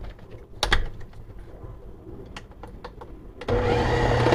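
A few light knocks, then about three and a half seconds in a countertop blender's motor starts up and runs steadily with a low hum. It is blending a thick chum of fish pieces, bread and oats.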